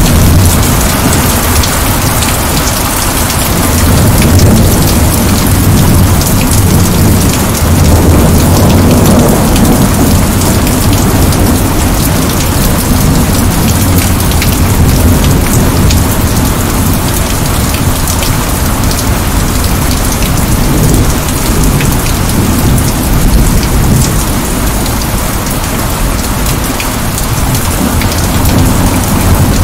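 Heavy, steady rain with a deep low rumble underneath that swells and eases slowly.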